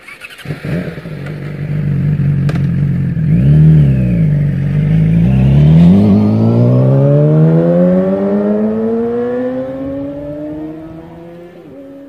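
2010 Yamaha YZF-R6 inline-four through an Akrapovic megaphone exhaust, revving up and dropping back once, then accelerating hard. Its pitch climbs steadily for several seconds while the sound fades as the bike pulls away.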